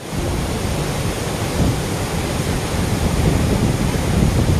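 A large river waterfall crashing down over rock ledges: a steady rushing noise with a heavy low rumble.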